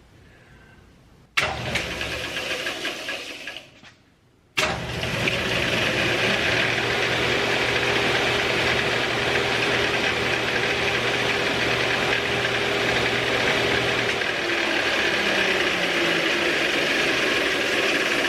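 Powermatic Model 30 disc/belt sander switched on about a second in and running for a few seconds, then switched off. It is started again moments later and runs steadily with a motor hum and a whirring rattle, working after its plug was rewired.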